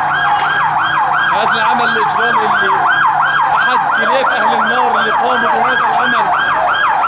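Emergency vehicle siren in fast yelp mode, its pitch sweeping up and down about three times a second without a break.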